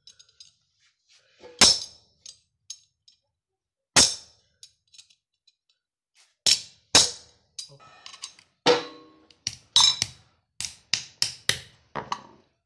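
Hammer striking a cold chisel to cut through a flat steel strip on a concrete floor: sharp metallic blows, a few spaced well apart at first, then a quicker run of blows in the last few seconds.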